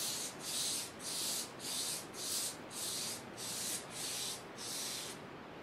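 Foam sponge brush stroked back and forth across taped watercolor paper: about ten soft, even brushing strokes, two a second, stopping shortly before the end.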